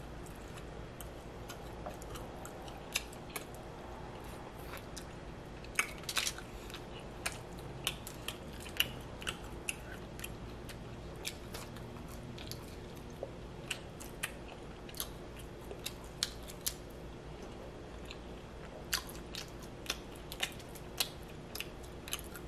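A person chewing saucy barbecue ribs close to the microphone: irregular wet mouth clicks and smacks, one or two a second, over a faint steady hum.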